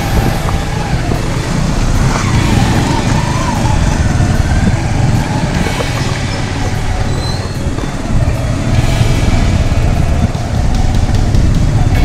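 Motorcycle running on the move, its engine drone mixed with a heavy, steady wind rumble on the microphone.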